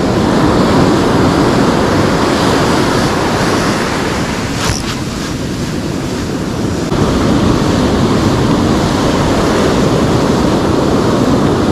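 Ocean surf breaking and washing up the beach in a steady rush, with wind buffeting the microphone. A single short click is heard near the middle.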